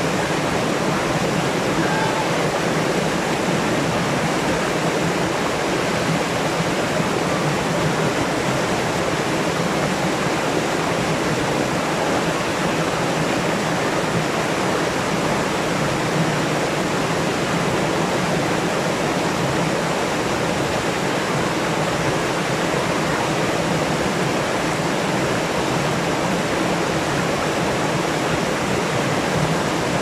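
Water rushing steadily down a small rocky cascade in a stream, a constant, even noise of white water pouring over boulders.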